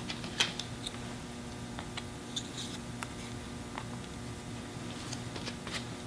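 Light scattered taps and a brief scrape of a cardstock strip dabbing acrylic paint onto a canvas and picking paint up from a paper plate, over a steady low hum.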